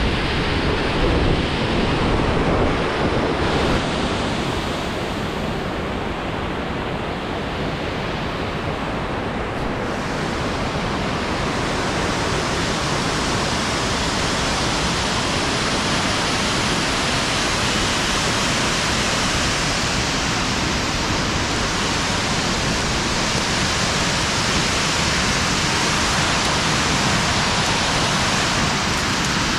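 Steady roar of a large waterfall, with wind blown off the falls buffeting the microphone. The buffeting is heaviest in the first few seconds, and the rush of water sounds brighter from about ten seconds in.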